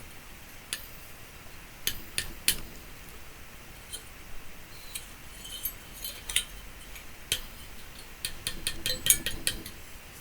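Scattered sharp metallic clicks and clinks of hand tools and metal microwave parts being handled, with a quick run of them near the end.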